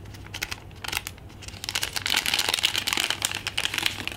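Crinkling of a metallized foil zip-lock bag being handled and opened while an adhesive strip sheet is pulled out, a dense run of crackles that grows busier after about a second and a half.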